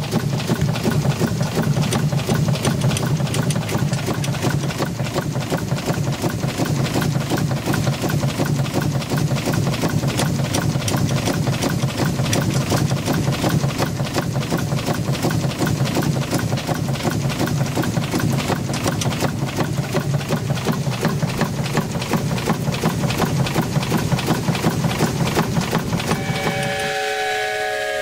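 Steam launch's vertical steam engine running with a fast, even beat. Near the end the beat cuts off and a steam whistle blows a chord of several tones that sag slightly in pitch.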